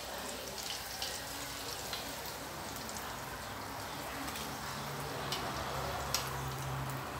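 Wontons deep-frying in a wok of hot oil: a steady sizzle and hiss with light crackling, and a few sharp ticks, the loudest about six seconds in.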